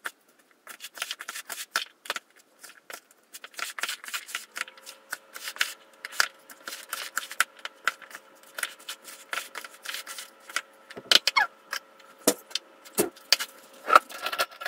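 Wooden spatula stirring a chunky, oil-dressed beet salad in a plastic bowl: quick, wet scraping and clicking strokes. A faint steady hum comes in about four seconds in, and a few louder knocks come near the end.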